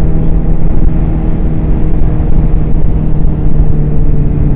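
Suzuki motorcycle engine running at steady revs on the move, under a dense rush of road and wind noise.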